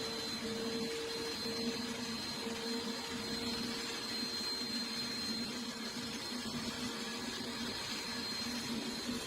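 A machine running steadily: an even mechanical hum with a faint high whine.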